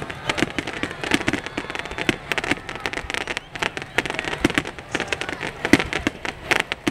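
Fireworks finale barrage: a dense, irregular run of sharp bangs and crackles, several each second, as gold aerial shells burst in quick succession.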